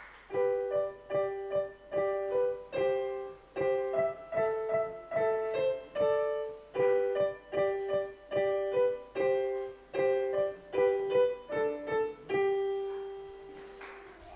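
Piano played by a young girl: a simple tune in a steady beat of struck notes and chords, about two a second, ending on a long held note that fades away.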